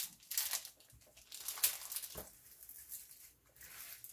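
Hands smoothing and pressing down a diamond painting canvas, its clear plastic cover film crinkling and rustling in short, irregular rustles.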